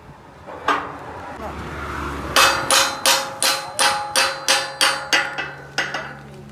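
Hammer striking a steel pin into a steel holding plate: one blow, then a quick run of about a dozen blows, some three a second, each with a metallic ring, stopping near the end.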